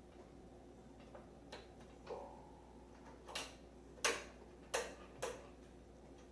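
A series of about six sharp clicks and snaps from small latch parts being handled during a microwave door latch repair, the loudest about four seconds in.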